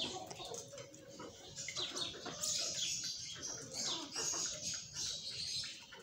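Backyard flock of chickens feeding, with scattered short high chirps and soft calls throughout.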